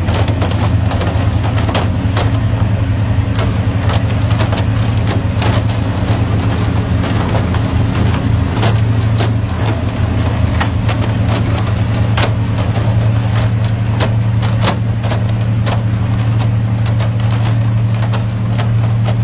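A motor running steadily with a constant low hum, with many sharp clicks and knocks at irregular intervals over it.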